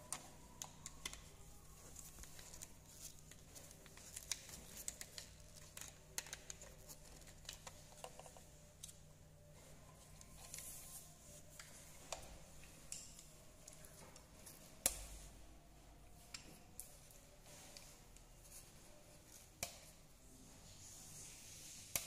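Faint scattered clicks and rustles of hands working insulated wires into a wall switch box, with a sharper click about fifteen seconds in and another near twenty.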